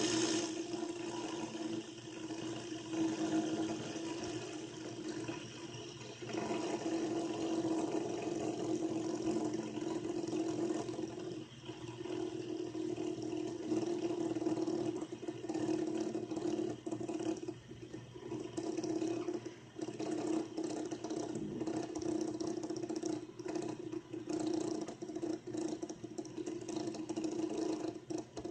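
Green plastic fidget spinner spinning flat on a wooden tabletop, giving a steady whirring hum with a hiss over it that swells and dips a few times.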